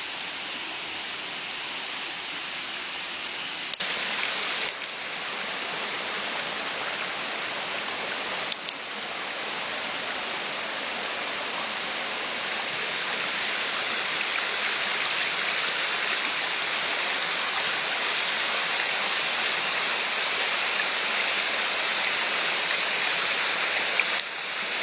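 Steady rush of running water, growing a little louder past the middle, with a few brief clicks about four and eight seconds in.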